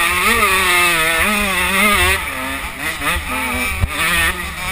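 KTM 85 two-stroke motocross engine heard from onboard, its pitch rising and falling again and again as the throttle is worked through corners. A single sharp knock comes about four seconds in.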